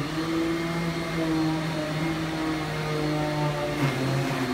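Hyla water-filter canister vacuum cleaner running steadily with its nozzle drawn over a foam mattress, a loud hum whose pitch drops briefly near the end.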